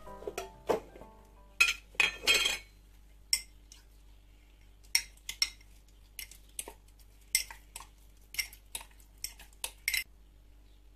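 A metal spoon clinking and scraping against a small glass jar while oat pulp is scooped and stirred: a string of sharp, irregular clinks, with a short rougher scraping stretch about two seconds in.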